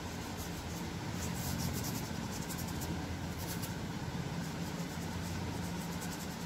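Paintbrush rubbing over watercolour paper in short, scratchy strokes, over a steady low hum.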